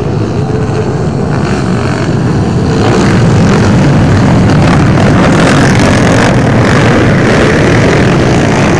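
A pack of motocross bikes racing, many engines revving hard together, growing louder about three seconds in as the riders come past.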